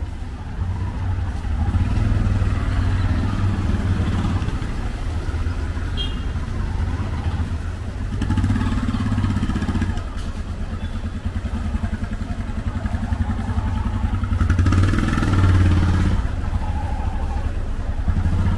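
Busy street traffic, led by the small engines of auto-rickshaws (tuk-tuks) running close by along with cars, as a steady loud rumble that swells for a stretch late on.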